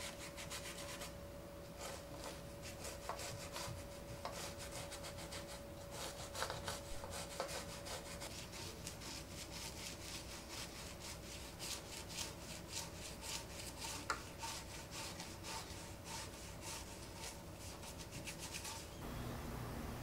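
Toothbrush bristles scrubbing a wet Macintosh IIx motherboard in soapy water, in quick repeated back-and-forth strokes, to scrub off oil leaked from its capacitors. The scrubbing stops about a second before the end, giving way to a steady low hum.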